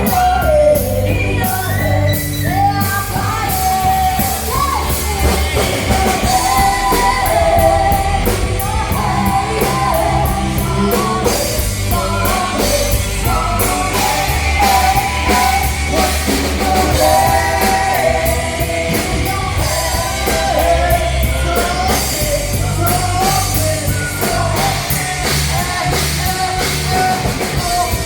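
Loud rock music with a singer over a steady drum beat and heavy bass.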